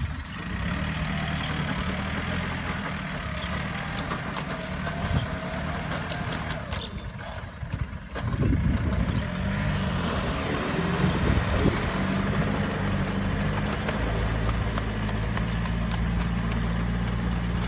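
Yanmar EF453T tractor's diesel engine running as it pulls a rotary tiller through wet, muddy ground, with rhythmic clattering and knocking from the machinery. The engine gets louder about halfway through.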